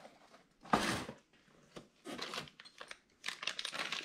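Rustling and handling of packaging as small parts are taken out of a winch kit box, with one louder rustle about a second in and softer handling noises later.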